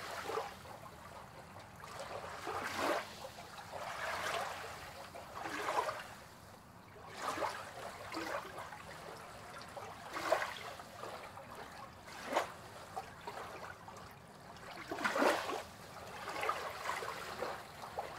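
Small waves lapping and splashing against a wooden pier, in irregular swells about every one to two seconds over a soft steady wash of water.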